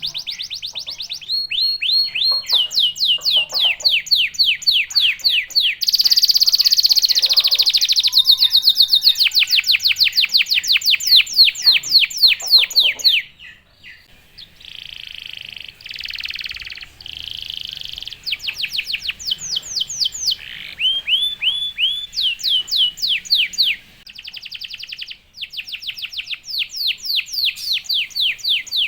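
Domestic canary singing long rolling trills of fast, evenly repeated falling notes, with a short break about halfway through.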